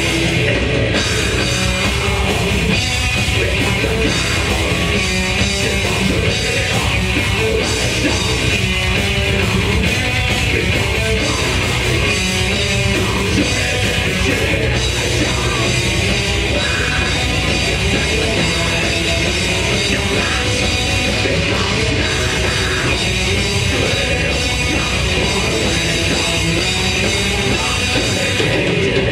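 Death metal band playing live: distorted electric guitars, bass and fast drum kit, steady and loud, heard through a club's PA.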